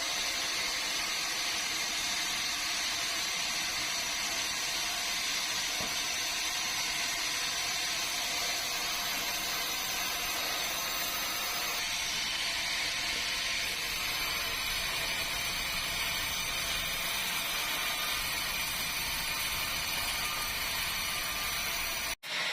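Sawmill saw running steadily through a meranti log, a continuous harsh mechanical noise that breaks off for an instant just before the end.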